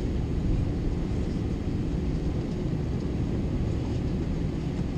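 Airbus A321's jet engines running at taxi power, heard from inside the passenger cabin while the airliner turns on the ground: a steady low rumble with a faint steady hum.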